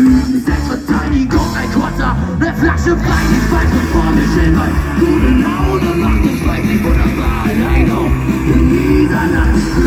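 Live rock band playing through a festival PA, electric guitars, bass and drums, heard from within the crowd.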